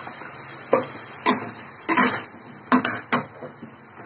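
A cooking utensil knocking against a metal kadhai of pumpkin pieces: about five short, sharp knocks.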